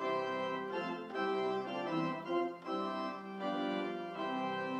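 Pipe organ playing sustained chords that change about once a second, as the introduction to a hymn verse.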